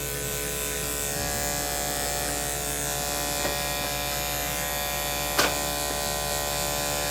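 Electric dog grooming clippers running steadily as they trim a puppy's paw pads, with one short sharp sound about five and a half seconds in.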